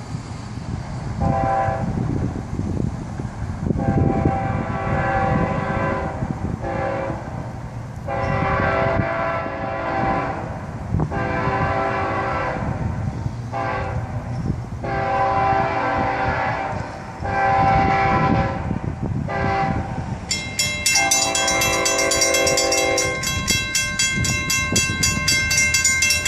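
Diesel freight locomotive horn sounding a series of long and short blasts for the grade crossings, over a low rumble from the approaching train. About 20 seconds in, a bell starts ringing rapidly alongside the last long blast.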